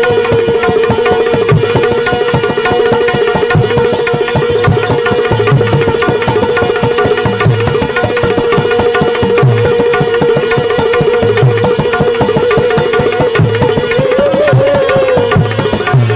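Devotional bhajan music without singing: a melody line holds one long note that bends up and back down near the end, over deep hand-drum strokes every second or two.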